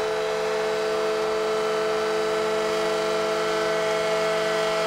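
Arena goal horn sounding a steady chord of several held tones over crowd noise, signalling the home team's overtime game-winning goal.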